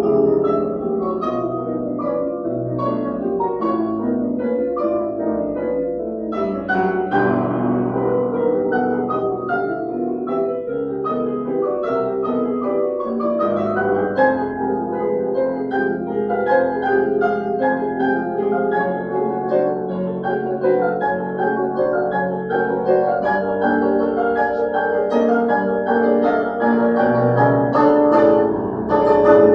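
Two grand pianos playing a classical duet together: a dense, steady flow of notes over recurring low bass notes.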